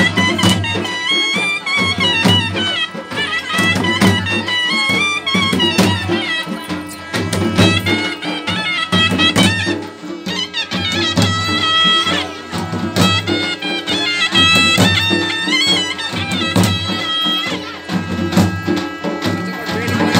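Traditional folk dance music: a high, wavering, ornamented melody line over steady drum beats.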